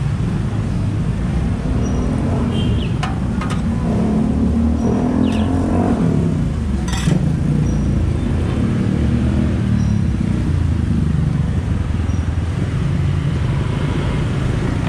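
Street traffic: motorcycles and cars running past with a steady low engine rumble that swells as one accelerates about halfway through. A few sharp clicks of a metal spatula on a flat-top griddle.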